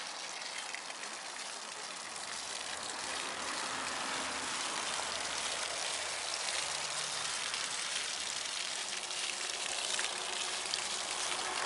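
Mineral spring water pouring in thin jets from an iron-stained standpipe and splashing steadily onto wet stones below.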